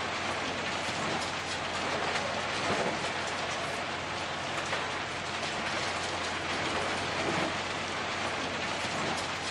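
Plasser & Theurer BDS 2000 E³ ballast regulating machine working along the track: a steady, dense rattle of ballast stones being pushed by its shoulder ploughs, over a low steady hum from the machine.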